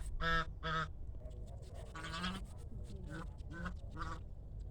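Geese honking: a string of short, nasal honks, the two in the first second loudest, followed by several fainter ones.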